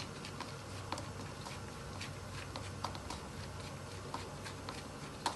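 Fingers mixing chopped coriander and ginger in a plastic bowl: faint, irregular small clicks and rustles.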